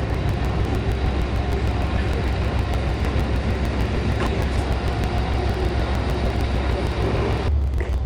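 A large engine running steadily with a heavy low rumble under a broad noise; the higher part of the noise drops away suddenly about seven and a half seconds in, leaving the low rumble.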